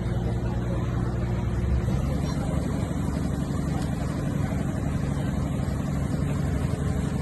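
Heavy construction machine's diesel engine running steadily, its note changing a little under two seconds in.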